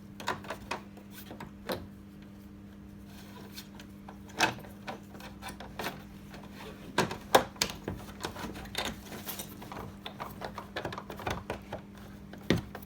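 Irregular clicks and knocks of hand work on a washing machine's plastic control panel as a new timer is fitted and screwed in, the loudest about seven seconds in, over a steady low hum.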